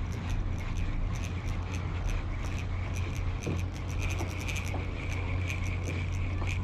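Spinning reel being cranked under the load of a hooked fish, with rapid irregular ticking over a steady low hum.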